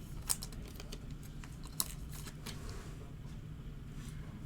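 Trading cards and pack wrappers being handled: scattered small clicks and crinkles, with a sharp, louder click near the end.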